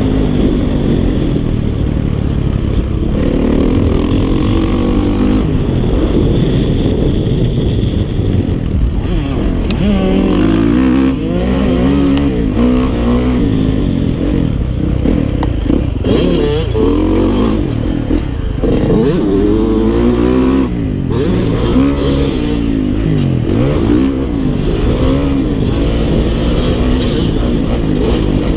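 Dirt bike engine revving up and down as it is ridden, its pitch rising and falling again and again, with short rough bursts through the second half.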